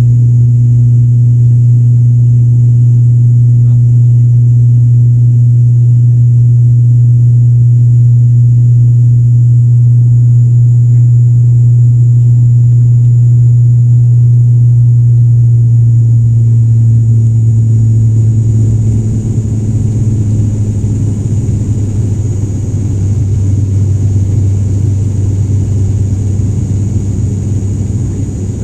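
Wings Air ATR 72 turboprop's propellers and engines droning steadily, heard from inside the cabin as the plane takes off and climbs. About two-thirds of the way through, the hum drops a little in level and turns rougher.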